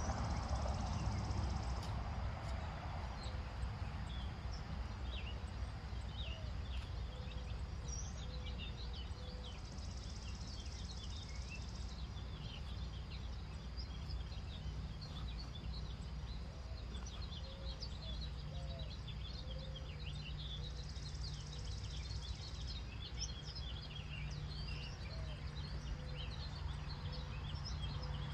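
Outdoor garden ambience: small birds chirping over and over against a steady low rumble, with a high hiss twice for about two seconds. A louder rustle of hands working in the soil comes at the very start.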